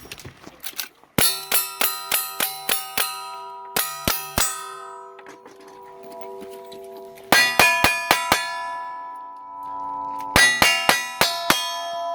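Steel shooting targets ringing as they are struck by rapid gunfire. The hits come in four quick strings of three to seven, about three or four a second, and each hit leaves a ringing tone that lingers.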